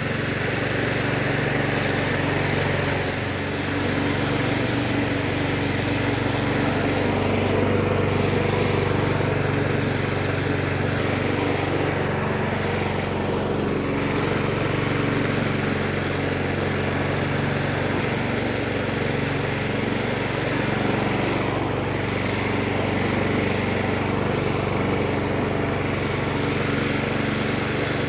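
Honda Izy petrol lawnmower's single-cylinder four-stroke engine running steadily at a constant speed while the mower is pushed across the lawn cutting grass.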